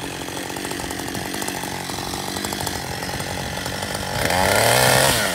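Two-stroke chainsaw running at low speed, then revved up to full throttle about four seconds in, its pitch rising, and held loud for about a second before dropping back.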